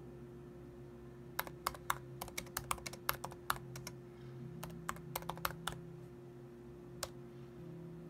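Typing on a computer keyboard: a quick run of about twenty keystrokes over some four seconds, then a single keypress a little later. A steady faint hum runs underneath.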